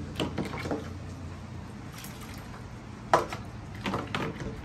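Water splashing and trickling as a small plastic cup scoops from the basin of a Little Tikes Magic Flower Water Table, with short splashes and knocks of plastic on plastic, the sharpest about three seconds in.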